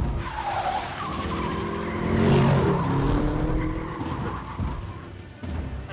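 Car engine revving through gliding pitch changes, with tyres skidding and squealing, loudest about two seconds in.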